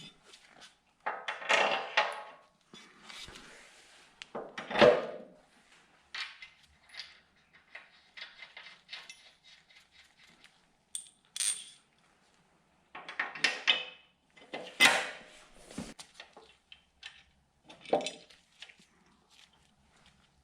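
Metal parts and bolts clinking and clattering as they are handled, in a string of separate bursts with quiet gaps, the loudest about five seconds in and again about fifteen seconds in.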